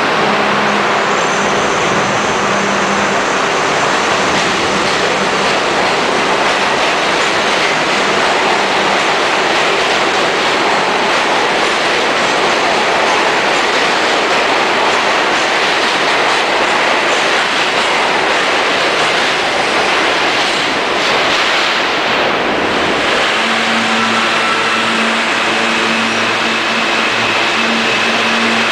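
R42 subway train pulling out of the station and picking up speed, its wheels and motors making a loud, steady running noise on the rails. About 23 seconds in, the sound changes to a different train moving past, with steady humming tones over its running noise.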